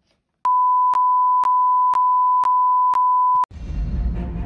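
A steady electronic beep tone, one high pitch held for about three seconds, with faint clicks about twice a second running through it. Music with a low beat starts right after it cuts off.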